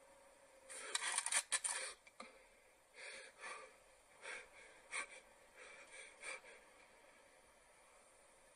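A person's heavy, tense breathing in short noisy breaths: a quick cluster about a second in, then irregular breaths through the middle that fade out.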